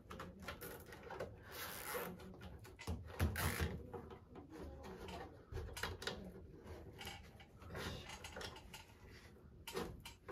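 Handling noise from a floor-to-ceiling tension-rod cat scratching pole being adjusted and tightened against the ceiling: scattered small clicks, knocks and rustles, with a louder thump about three seconds in.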